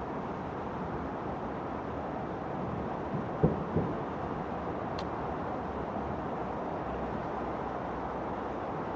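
Fireworks shells bursting: two booms about a third of a second apart, around three and a half seconds in, over steady outdoor background noise.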